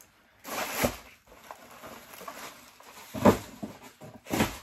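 Handling noise from rubber jelly slides and their packaging being moved and set down: a rustle about half a second in, a louder thump a little after three seconds, and another knock near the end.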